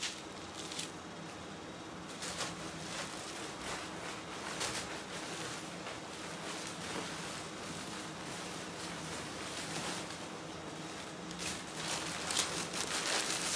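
Soft rustling and crinkling of clothes in plastic bags being picked through and handled, with a few louder crinkles near the end, over a faint steady hum.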